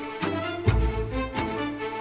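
Background music: sustained pitched notes over a deep bass, with a steady beat about three times a second.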